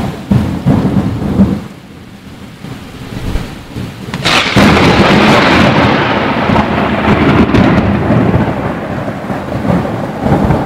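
Thunder: a sharp clap right at the start that rumbles for about a second and a half. Then, about four seconds in, a second and louder crack breaks into a long rolling rumble that keeps on to the end.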